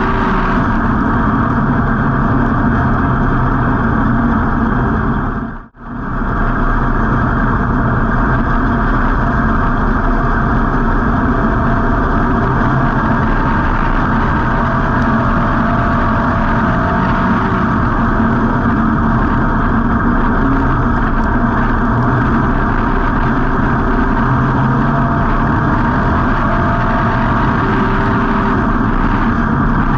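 Street stock race car's V8 engine running hard on a dirt oval, heard loud and steady from the on-board camera inside the car. The sound cuts out briefly about six seconds in.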